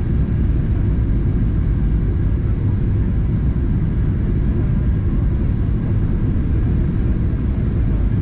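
Steady low rumble of a Boeing 737-800's CFM56-7B engines and airflow, heard inside the cabin.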